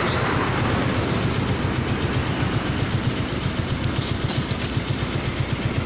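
Motorcycle engine idling, a steady, even low putter.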